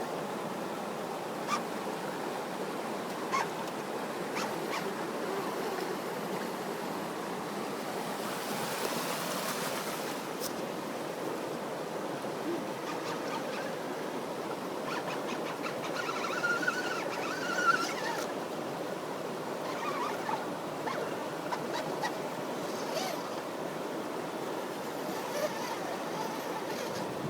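Steady rush of moving water, with scattered light clicks and a short wavering whine about two-thirds of the way through.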